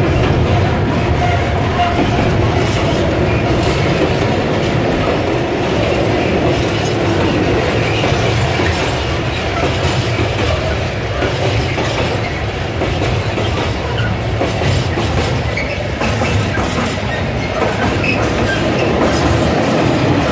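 Freight train of covered vans and tank wagons rolling past close by, its steel wheels clattering over the rail joints in a steady, continuous rumble.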